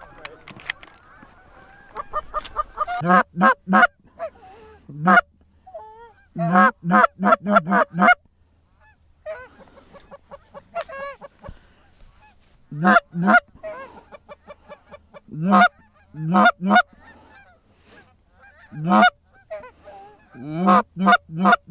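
Goose honks and clucks in quick runs of four to six calls, with short pauses between the runs.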